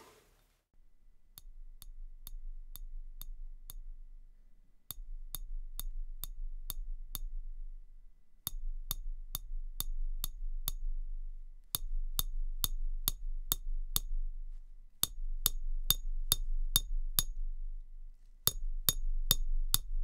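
Bamboo chopstick tapping a stainless steel ramekin: quick, dry clinks with a short metallic ring. They come in six groups of six taps, each group struck harder than the one before, to record velocity layers for a sample library.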